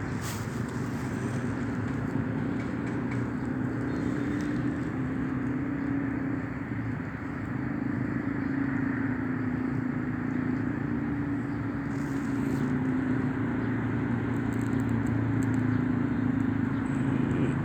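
A motor running steadily, a low even hum with no change in speed.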